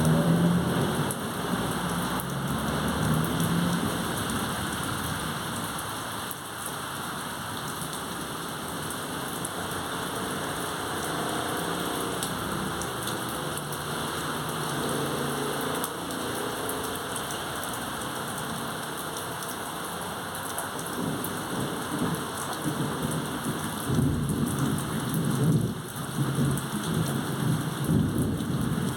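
Steady rain falling during a thunderstorm, with thunder rumbling in the first few seconds and again near the end.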